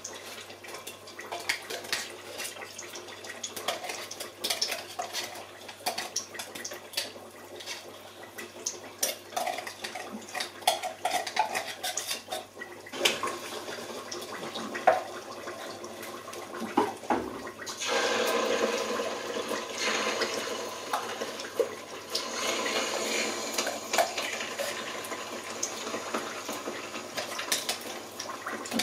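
Metal spoon scraping tomato paste out of a tin can and tapping against the rim of a steel pot, making many short clinks and scrapes. About two-thirds of the way in, a steady hiss starts and keeps going.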